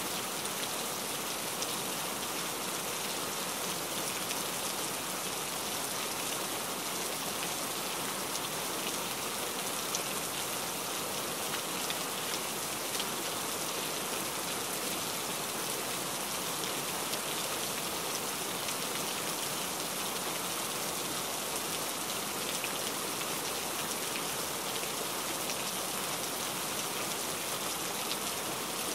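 Steady rain falling, an even hiss with a few small drop ticks now and then.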